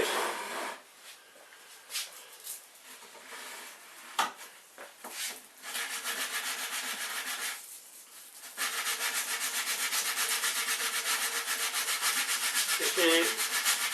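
Sandpaper rubbed by hand along the sharp edge of a CNC machine's sliding table, rounding the edge off so it won't dig into the guide rails. A few knocks and short strokes come first, then from about halfway a fast, even back-and-forth sanding.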